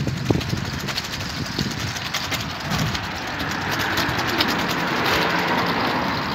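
Street traffic: a motor vehicle's engine and tyre noise, swelling in the second half as it passes.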